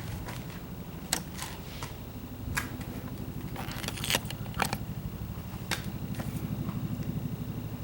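Kawasaki Z750 Spectre inline-four being cranked on its electric starter: a steady, rapid pulsing of the engine turning over without firing, with a few sharp clicks and knocks on top. The bike does not run.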